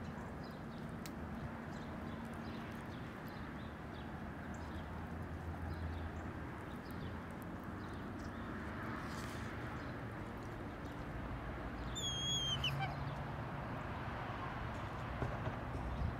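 Outdoor ambience: a steady low rumble with faint scattered ticks, and about twelve seconds in a single short, clear bird call that falls in pitch.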